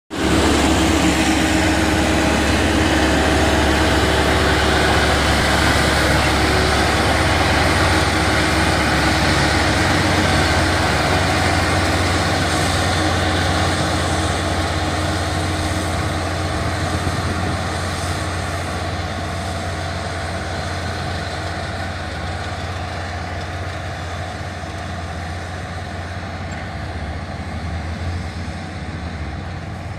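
Small crawler tractor's engine running steadily under load, driving a rear-mounted rotary tiller through the soil of a harvested paddy field. It slowly grows quieter as the tractor moves away.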